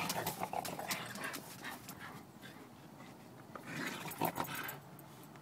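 A Blue Heeler and a German Shepherd playing tug-of-war: dog noises and scuffling in two bouts, one at the start and another about four seconds in.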